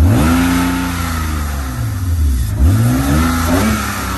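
BMW E36 engine with a newly fitted aftermarket intake revved twice from idle: a sharp rise at the start that falls slowly back, then a second quick rev about two and a half seconds in.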